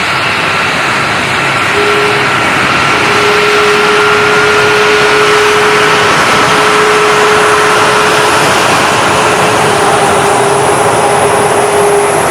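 C-5M Super Galaxy's turbofan jet engines running steadily, a loud rushing noise with a steady high whine and humming tones on top.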